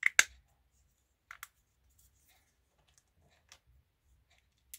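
Plastic halves of a 1993 Deluxe Megazord Sabretooth Tiger toy's head being squeezed and snapped together. A sharp double click comes at the start, two more clicks follow about a second and a half in, then faint handling ticks and one last click near the end.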